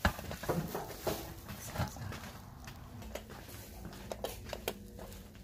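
Irregular clicks and light knocks of objects and a bag being handled, with one sharp knock right at the start.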